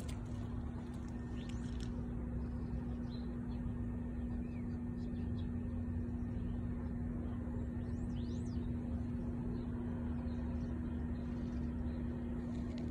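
Steady outdoor street ambience: a constant low rumble with a steady hum under it, and a few faint high bird chirps now and then.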